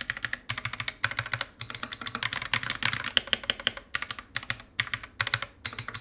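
Akko Jelly White linear mechanical keyboard switches typed on rapidly in a keyboard with only a few keycaps fitted: dense runs of keystroke clacks with brief pauses between them.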